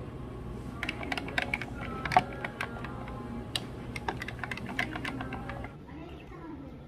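A long metal bar spoon stirring iced coffee in a tall glass, ice and spoon clinking rapidly and unevenly against the glass, starting about a second in and lasting around five seconds.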